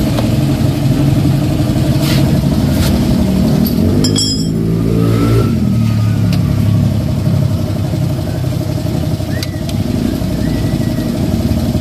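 A small vehicle engine running, its pitch rising and falling about four to six seconds in as it revs, with a few sharp metallic clicks near two and three seconds in.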